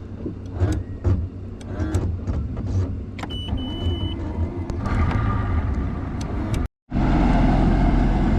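An engine idling steadily, with scattered clicks and knocks over it and a short high beep about three and a half seconds in. After an abrupt cut near the end, the engine is louder and steadier.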